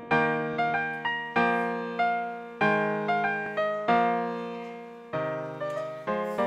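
Slow solo piano music: chords with a melody on top, a new note or chord struck about every half second and left to fade.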